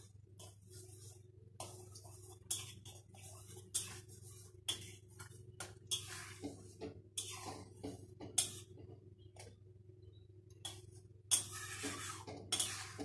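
Metal spatula stirring curry in a metal kadai, scraping along the pan and clinking against its sides in irregular strokes.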